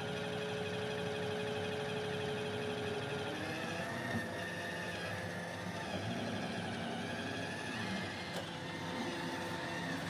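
iRobot Roomba i7+ robot vacuum running: its vacuum motor and brushes give a steady whir as it drives across the carpet and onto a rug, the pitch of the hum shifting slightly about three and a half seconds in.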